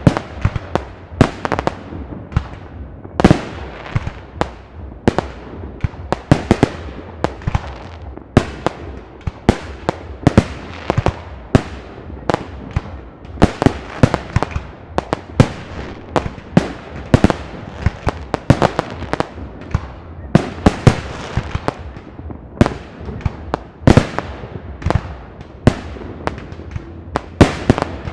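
Fireworks display: a continuous, irregular string of loud shell bursts, about one or two a second, each a sharp bang that trails off in an echo, over a steady low rumble.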